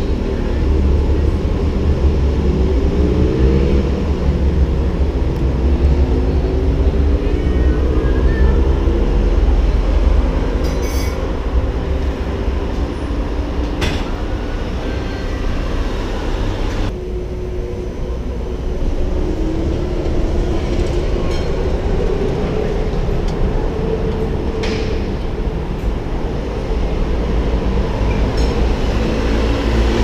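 City street traffic: a steady rumble of engines, with the pitch rising and falling as heavy vehicles pull away and pass, and a couple of sharp clicks near the middle.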